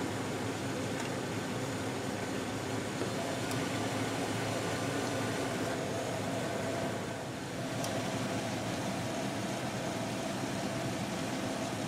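2004 Chevrolet Silverado engine idling steadily with the hood open, with the air-conditioning compressor running and the system blowing cold again after a refrigerant top-off.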